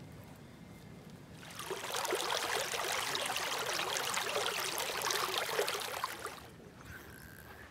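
Shallow stream rushing and splashing over stones right at the microphone. It swells in about a second and a half in and dies away near the end.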